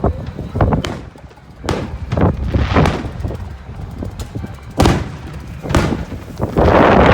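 Fireworks going off: several sharp bangs, a second or so apart, two of them followed by a rush of noise lasting about a second.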